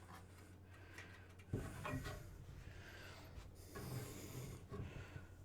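Faint rubbing and scraping of hands fumbling to fit a bolt from underneath the computer's chassis, in two bursts about a second and a half and four seconds in, over a low steady hum.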